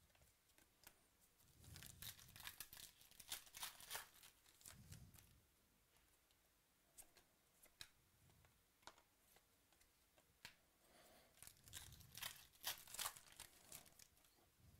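Wrappers of 2017 Chronicles Baseball card packs being torn open and crinkled. There are two faint bouts of crackling, about two seconds in and again about twelve seconds in, with scattered light clicks between.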